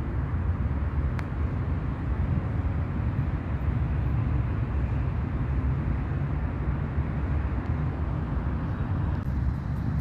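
Steady low rumbling outdoor background noise, with one sharp tick about a second in.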